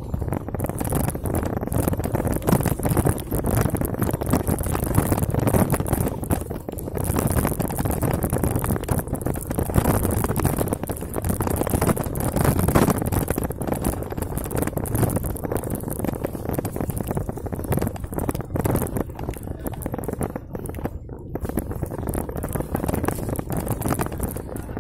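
Wind rushing over the microphone with the rattle and knocks of a mountain bike riding a bumpy dirt trail.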